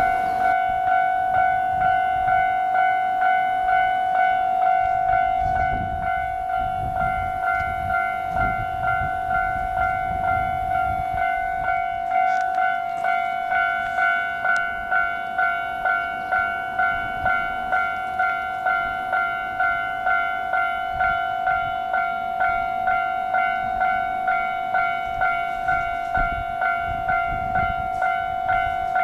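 Japanese level crossing's electronic warning alarm ringing over and over, about two strikes a second, warning that a train is approaching. Low rumbling comes and goes underneath.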